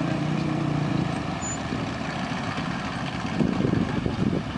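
A vehicle engine running steadily, turning rougher and more uneven about three seconds in.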